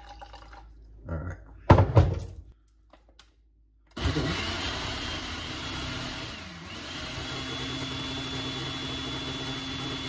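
Water pouring into a glass at the very start, then a few loud knocks. About four seconds in a countertop blender starts suddenly and runs steadily, blending a thick aloe vera and sea moss mix, with a whine whose pitch dips briefly a few seconds later before settling.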